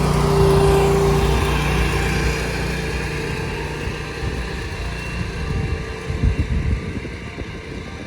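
A road vehicle passing by, loudest just after the start and then fading away.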